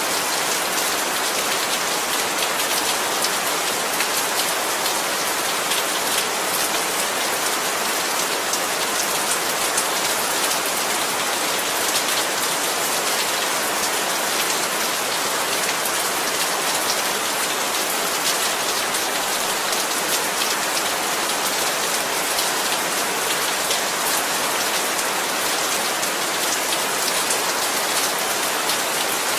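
Heavy, steady rain pattering on surfaces, a dense hiss of countless drops.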